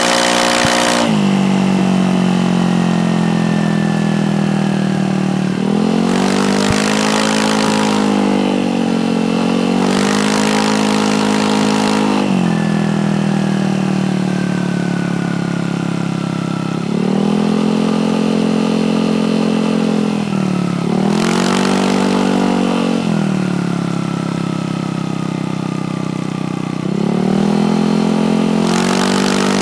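Motorcycle engine through an Exos R6 aftermarket exhaust pipe with its silencer removed. It is revved repeatedly: about five throttle blips, each held for a couple of seconds, falling back to idle in between.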